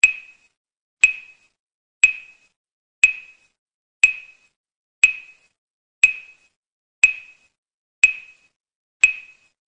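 A short, high ping sounding once a second in a steady metronome-like beat, ten in all, each ringing out briefly before the next. It works as a timing cue that paces an eye-movement drill.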